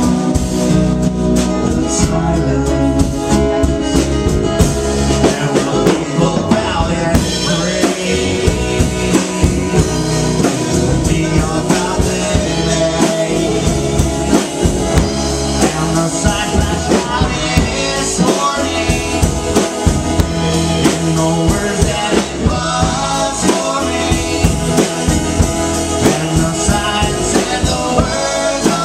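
Rock band music: a drum kit keeps a steady beat under guitar.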